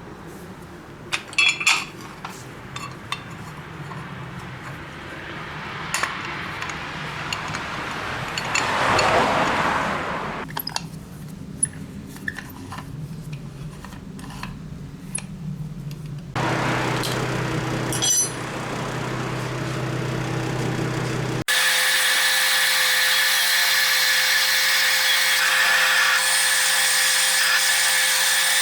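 Metal tools and parts clinking and being handled, then a power tool starting abruptly about three-quarters of the way in and running steadily.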